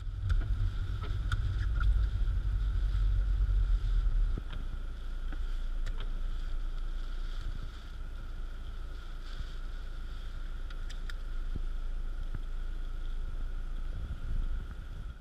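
Car cabin noise while driving through a snowstorm: a deep rumble of wind and road, heavier for the first four seconds and then easing, with a faint steady whine above it and a few light ticks.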